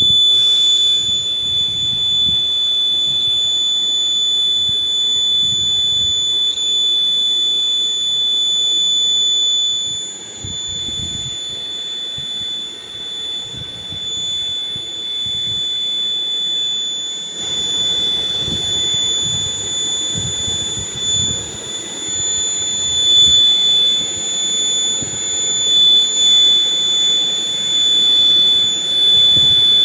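Electronic buzzer sounding one continuous high-pitched tone, switched on suddenly at the start and held steady, over an uneven low rumble.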